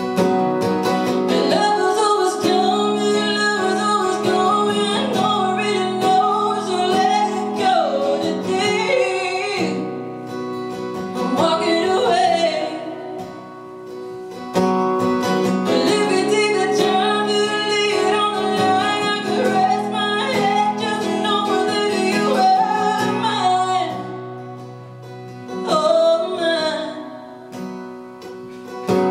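A woman singing over a strummed acoustic guitar, in two long phrases, each followed by a short stretch where the guitar plays on more quietly.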